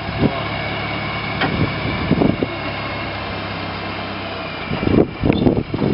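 1953 Massey-Harris Pony tractor's small four-cylinder flathead engine running steadily at a low, even speed.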